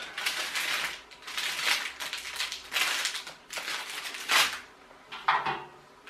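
A plastic bag of instruction papers rustling and crinkling as it is handled, in a series of short bursts.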